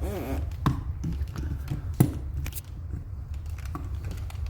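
A few sharp clicks and knocks of door latch hardware being handled and screwed on, the loudest about two seconds in, over a low steady rumble.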